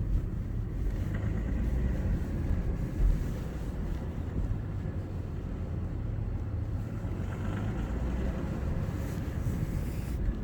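2.7 TDI V6 diesel engine running with a steady low rumble; the owner posts it as a knock that the engine makes under load.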